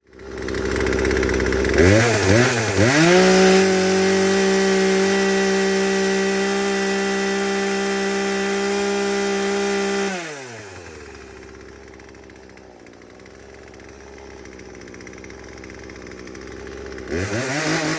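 Poulan Pro PP4218A two-stroke chainsaw engine running. It is blipped twice about two seconds in, then held at full throttle for about seven seconds. It drops back to idle, and is revved up again near the end.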